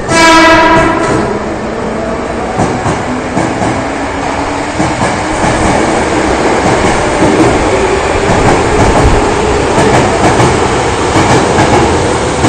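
Hankyu 5300 series electric train accelerating out of an underground station. A short, loud pitched tone in the first second, then the cars run past with wheels clacking over rail joints and a motor whine rising in pitch as it gathers speed.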